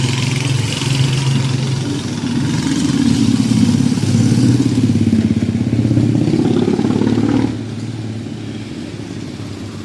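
A motor vehicle engine running loud as it passes close by, its sound dropping away sharply about seven and a half seconds in, leaving lower street traffic noise.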